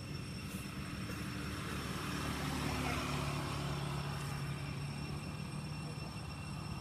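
A motor vehicle engine humming past, swelling to its loudest about halfway through and then easing off.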